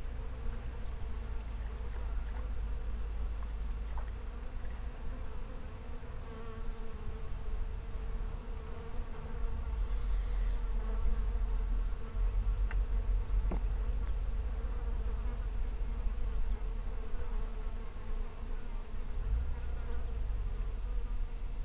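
Flying insects buzzing, a steady drone that wavers slightly in pitch, over a low rumble.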